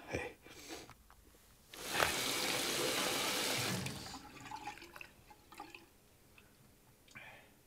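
Water running from a tap for about two seconds, then stopping, followed by a few faint drips and small splashes.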